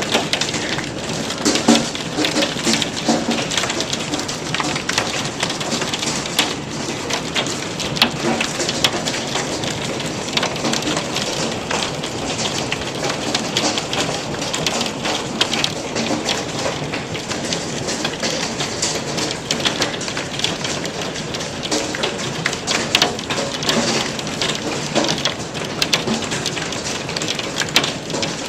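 Hail and rain pelting down hard: a dense, steady hiss dotted with many sharp individual hits.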